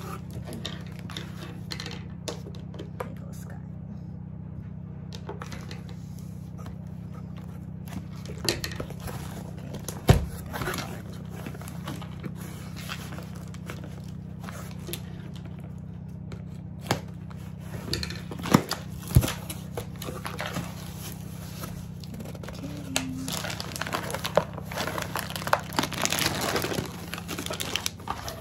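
Cardboard shipping box being opened by hand: packing tape pulled and torn, flaps scraping and folded back, with a few sharp knocks on the box. In the last few seconds, plastic packaging crinkles densely as the contents are lifted out. A steady low hum runs underneath.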